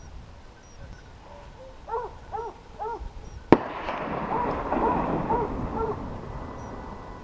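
Hunting hounds baying, a few calls in quick succession, then a single gunshot about three and a half seconds in that echoes and rolls around the valley for several seconds while the hounds keep baying under it.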